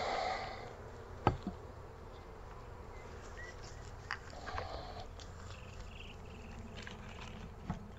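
Honeybees buzzing steadily around an open hive, with one sharp knock about a second in and a few lighter taps later.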